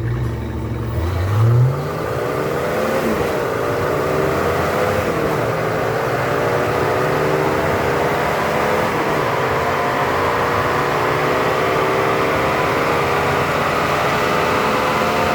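Car engine under load on a chassis dyno, its pitch climbing, dropping back about five and nine seconds in, then holding steady at high speed.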